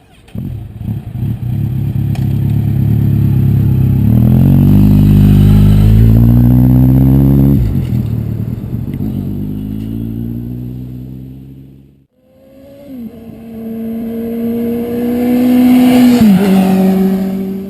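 Two motorcycle engine recordings. The first builds up and revs, its pitch climbing for a few seconds before it drops and fades away. After a brief gap, a second motorcycle holds a steady engine note that falls sharply in pitch near the end as it passes by.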